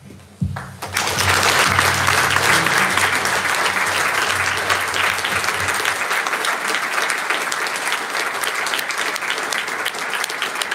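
Audience applauding: dense clapping that starts about a second in and carries on steadily.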